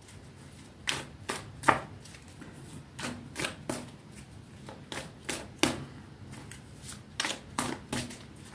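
A tarot deck shuffled by hand: an irregular string of short, sharp card slaps and clicks.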